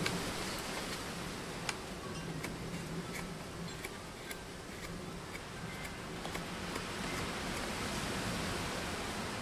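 Steady rushing of wind and rain, with small scattered clicks and short scrapes of a knife blade shaving a wooden spatula blank.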